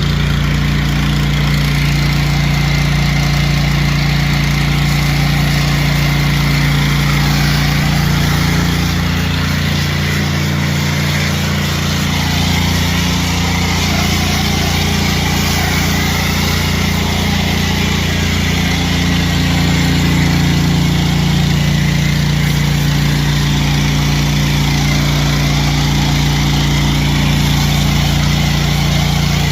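Gas engine of a pressure washer running steadily during a driveway pre-rinse, a constant low hum with an even hiss over it.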